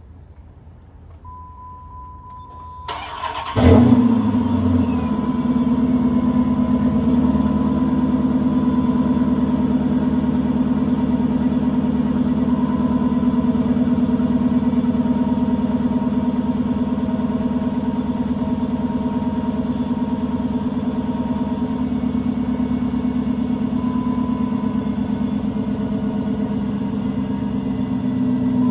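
2006 Dodge Charger R/T's 5.7-litre Hemi V8 cold-starting on newly fitted ignition coil packs: the starter cranks for under a second, the engine catches about three and a half seconds in with a quick flare of revs, then settles into a steady idle.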